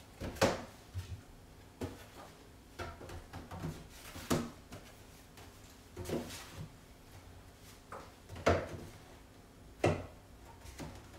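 Groceries being put away in a wooden kitchen pantry cupboard: a string of scattered knocks and clunks as items are set on the shelves and the cupboard is handled. The sharpest ones come about half a second in, around four seconds in, and twice near the end.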